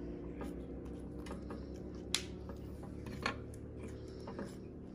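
Baby monkey picking at and eating grapes off a plate, with light clicks and two sharp clinks about a second apart, over a steady low hum.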